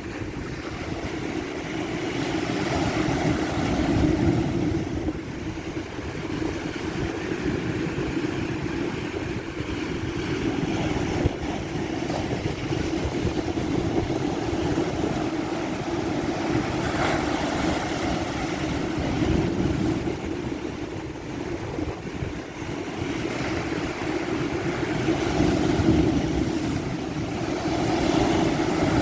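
Ocean surf at high tide: a continuous rushing wash of waves that swells and eases every several seconds.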